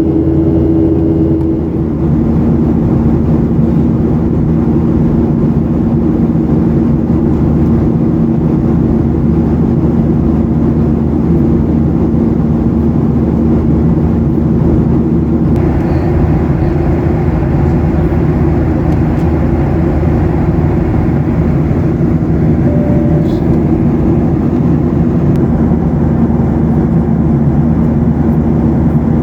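Steady cabin drone of a Boeing 737-800 with its CFM56-7B engines running: a loud rushing roar with a steady low hum. About halfway through, the hiss turns brighter and stays that way.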